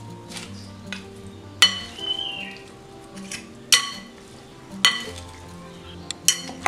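A utensil clinks sharply against a glass salad bowl about four times, each clink with a short ring, as salad is tossed. Soft background music plays throughout.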